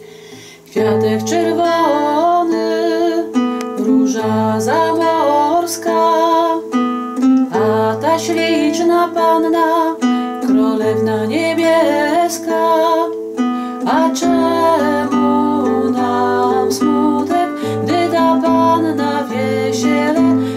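Acoustic guitar picked in a slow, plucked melody over low bass notes, starting about a second in, with a woman singing over it.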